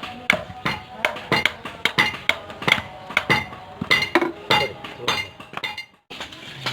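Hammer striking steel on an anvil in hand forging of a knife blade, sharp ringing clinks about three times a second. The strikes stop abruptly near the end.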